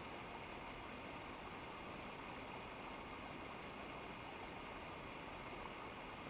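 Water rushing steadily, an even hiss with no separate splashes or knocks.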